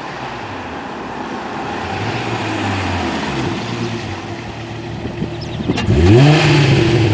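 Volkswagen VR6 engine running, then revved once near the end, its pitch sweeping up quickly and holding high.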